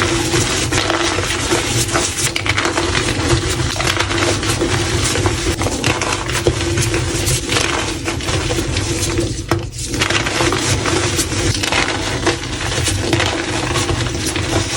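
Blocks of gym chalk being crushed, a dense, continuous crunching and crackling, with a brief lull about ten seconds in.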